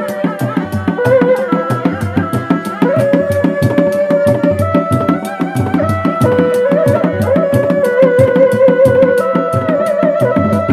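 Sundanese reak music: a set of four dogdog drums beaten in fast, steady interlocking strokes, with a held, wavering melody line over the drumming.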